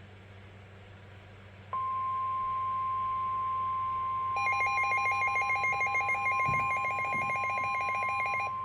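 NOAA Weather Radio warning alarm tone: a single steady electronic tone that starts abruptly about two seconds in and holds. From about four seconds in a rapid pulsing electronic beep, alternating between two pitches, sounds over it for about four seconds.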